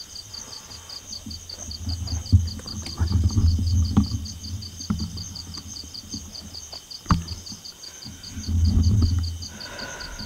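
Night insects chirping in a steady, rapidly pulsing high trill, over low rumbling handling noise and a few sharp clicks from the camera being moved and fiddled with near the microphone; the rumbles are the loudest part, about two seconds in and again near the end.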